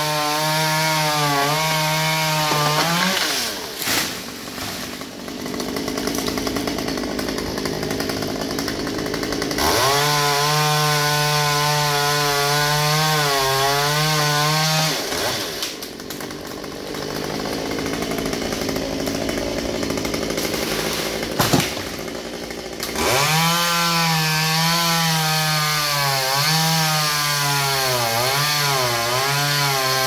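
Chainsaw cutting jackfruit tree branches: three stretches at full throttle, its pitch dipping and wavering under load, falling back to a lower, quieter run between cuts. One short sharp knock comes a little after twenty seconds in.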